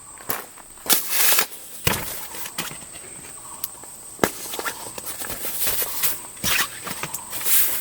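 Irregular rustles, clicks and knocks of a camp shelter being set up by hand, with a steady high-pitched insect drone behind.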